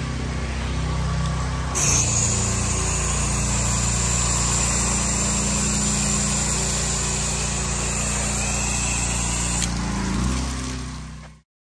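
Small engine of a pressure-washing rig running steadily, with spray hissing from the wash wand from about two seconds in until near ten seconds. The sound fades out just before the end.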